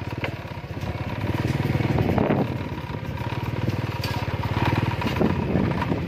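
Motorcycle engine running under way, a steady low pulsing that gets louder about a second in.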